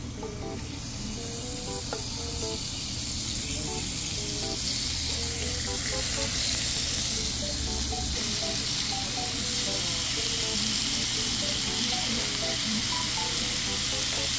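Thin slices of Korean beef brisket (chadolbagi) sizzling on a hot grill plate. The sizzle grows louder over the first few seconds as more slices go onto the plate, then holds steady.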